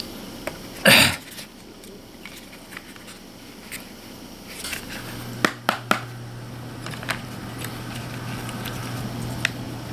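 Handling noise: Burris XTR Signature scope rings and their clear plastic hard case being knocked and set down. There is a sharp knock about a second in and a few quick clicks around the middle. A low steady hum starts about halfway.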